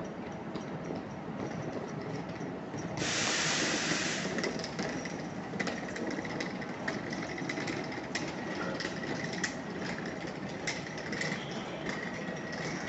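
Electric multiple unit standing at a platform with a steady low hum. About three seconds in there is a loud hiss of compressed air lasting about a second, followed by scattered light ticks and clicks.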